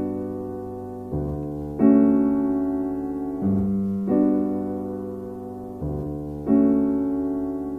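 Slow solo piano music: a low bass note and then a chord above it, in turn, about every second or two, each struck and left to ring and fade.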